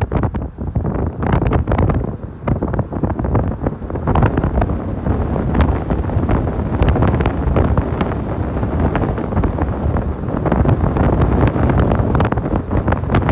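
Wind buffeting the microphone over the low rumble of a car driving along a city street.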